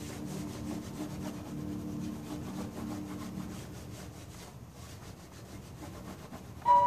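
Pastel chalk being rubbed and blended by hand on a large paper sheet, a soft scratchy rubbing, stroke after stroke. It sits under the last of a sustained bell-like chord fading out over the first half, and louder music with a held tone comes in just before the end.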